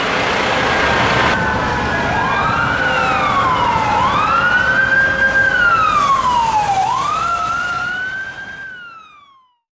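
Emergency vehicle siren on a slow wail, its pitch rising and falling three times over the rumble of street traffic. Near the end it glides down and fades out.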